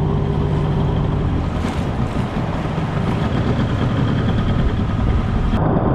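Outboard motor of a small inflatable boat running under way, with the rush of water along the hull.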